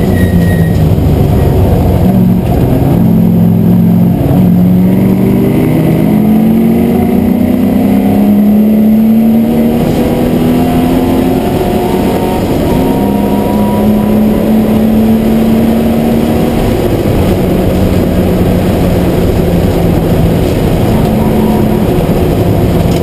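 V8 engine of an MGB GT V8 race car running hard at racing speed, heard from inside the cabin. The revs climb slowly through one long pull in the first half, then the pitch drops back a couple of times and holds steadier.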